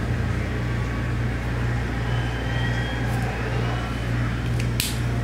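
Steady low electrical hum, with a short click near the end.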